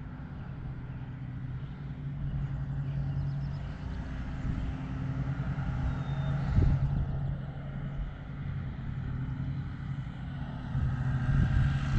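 A steady low mechanical hum, with a single knock about six and a half seconds in.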